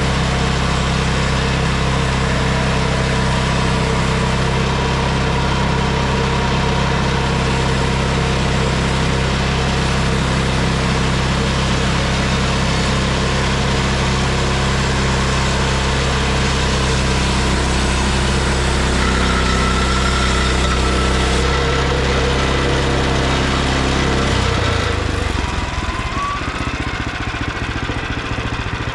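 Small gasoline engine of a Frontier OS23 bandsaw sawmill running steadily at speed. About 25 seconds in it drops to a lower, rougher idle.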